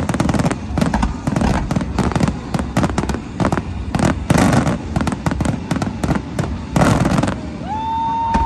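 Fireworks barrage: a rapid run of overlapping explosions and sharp cracks. Near the end the bangs stop and a steady horn note starts and is held.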